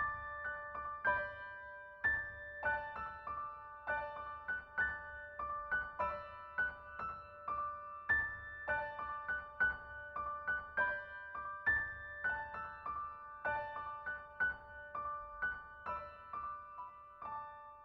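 Soft background piano music, single notes and chords struck at a gentle, even pace and left to ring; it stops just before the end.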